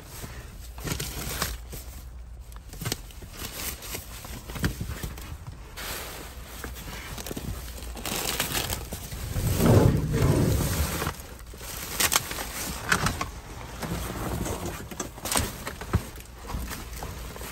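Black plastic garbage bags rustling and crinkling as hands rummage through them, with irregular scrapes and knocks. A louder, heavier bout of handling comes a little past halfway.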